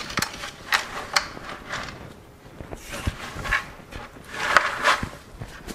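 Mesh laundry bags and a plastic bucket being handled: several sharp clicks and knocks in the first second and a half, then longer rustles of the bags near the end.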